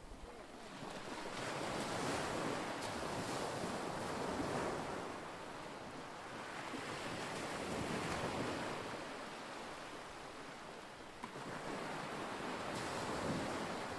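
Wind and lake water washing on the shore: a steady rushing noise that swells and eases every few seconds.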